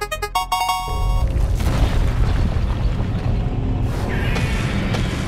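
Cartoon sound effects over music: a fast ticking spin jingle ends with a short chime, then a heavy low rumbling boom runs on.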